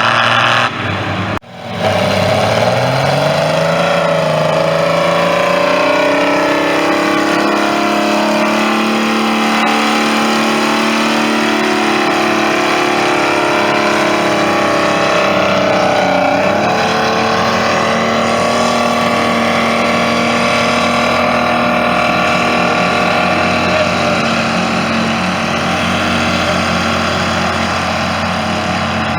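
Tractor engine pulling under load, revving up over a couple of seconds and then running hard at steady high revs, with a brief dip and change in pitch about halfway through.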